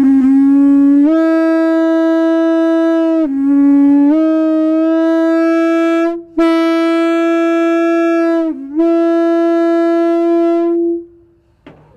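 The number 2 bell of a Nathan M-series locomotive air horn blowing a loud single note on a little air while it is being voiced. The note starts low and steps up about a second in. It dips back to the lower pitch a few times, breaks off briefly about six seconds in, and stops about a second before the end.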